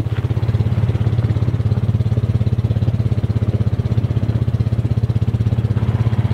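A Honda Foreman ES ATV's single-cylinder four-stroke engine running steadily, with an even, rapid pulsing beat.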